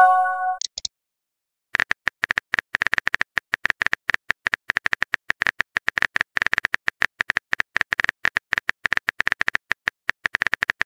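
Simulated smartphone keyboard typing: rapid key clicks, several a second, from about two seconds in. At the very start, a short electronic chime of several steady tones, the sound of a text being sent.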